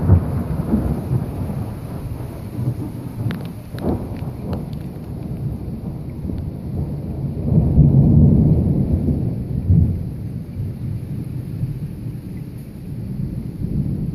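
Thunder rolling, a long low rumble that swells to its loudest about halfway through, with a few sharp cracks around four seconds in.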